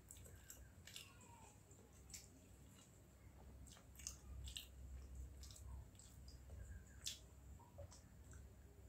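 Faint chewing and wet squishing as fingers work water-soaked rice in a steel bowl, with scattered small clicks.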